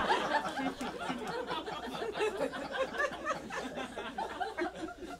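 A small audience laughing and chuckling, the laughter loudest at first and dying away gradually.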